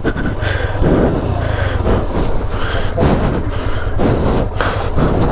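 Motorcycle engine running with a steady low hum, with short louder surges every second or so.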